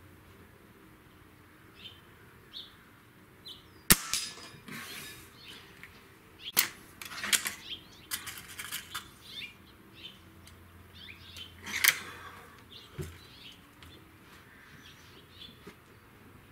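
A .22 Hatsan 95 Vortex gas-piston break-barrel air rifle fires a single sharp shot about four seconds in. This is followed by a series of clicks and clunks as the barrel is broken open, cocked and loaded, with another loud clunk near twelve seconds. Small birds chirp in the background.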